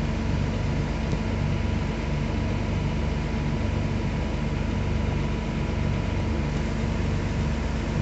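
Scania truck's diesel engine idling steadily.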